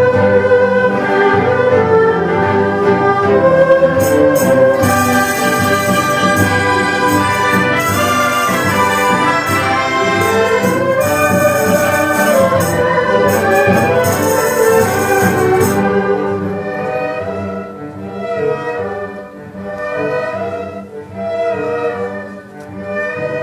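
Chinese traditional orchestra playing loud, dense full-ensemble music, bowed erhu and other huqin with percussion crashing in the upper range, for about sixteen seconds. It then thins to a quieter passage of phrases that swell and fade.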